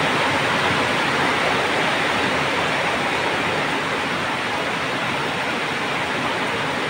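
Pot of vegetable soup at a rolling boil: a steady, dense bubbling hiss.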